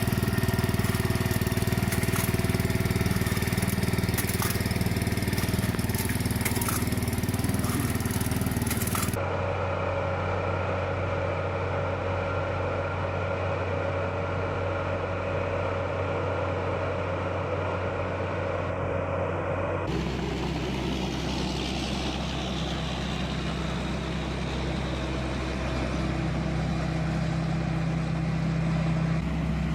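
Farm machinery running: a steady engine drone with mechanical clatter, changing abruptly twice, at about 9 s and 20 s, as different machines are heard.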